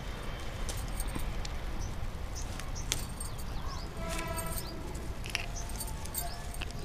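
Green chilli stems being snipped off the plant, a few separate sharp clicks, with small birds chirping in the background.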